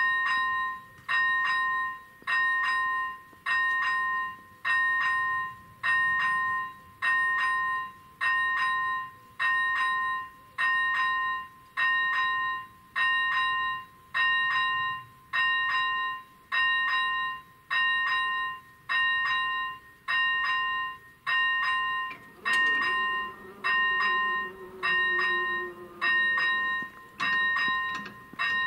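Level-crossing warning bell starting up and ringing steadily with a repeated bell-like ding a little over once a second, warning of an approaching train. About two-thirds through, a low hum from the barrier drives joins in as the booms begin to lower.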